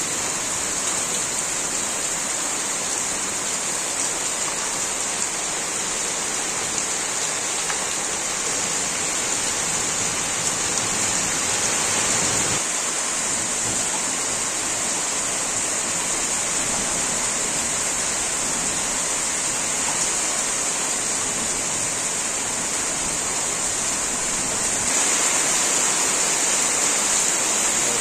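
Heavy rain falling steadily, a dense even hiss that grows a little louder near the end.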